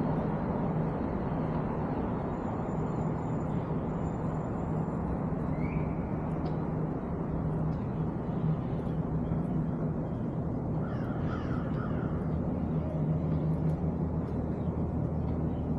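Steady outdoor city background noise with a low hum. A bird calls a few times in quick succession about eleven seconds in.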